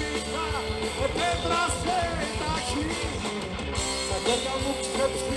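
Rock music with guitar, drums and a singing voice.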